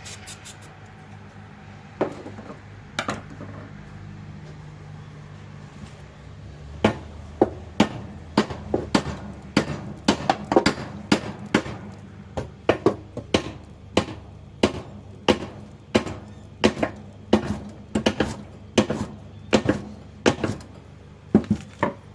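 Hammer blows knocking a stuck keyed part off a Briggs and Stratton lawnmower engine's crankshaft: a couple of single strikes, then a steady run of about two blows a second.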